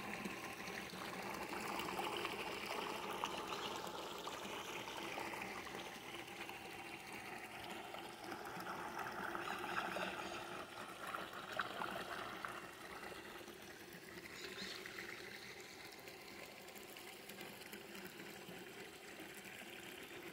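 Low, steady bubbling and splashing of water in fish tanks, where aeration lines push air up and break the surface in several spots; it grows a little quieter in the second half.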